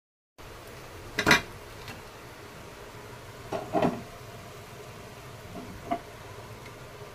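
A few sharp knocks and clatters over a steady low background hiss: the loudest about a second in, a quick pair a little before the four-second mark, and a faint one near the end.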